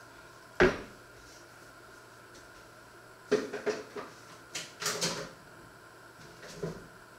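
Kitchen handling sounds: a sharp knock about half a second in, then a run of clicks and knocks in the middle and one more near the end, as a plastic tub of spread is taken out and set down on a wooden cutting board.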